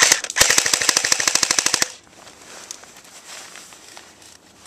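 Electric airsoft AK-74 firing one rapid full-auto burst of just under two seconds, a fast even string of sharp shots that cuts off suddenly.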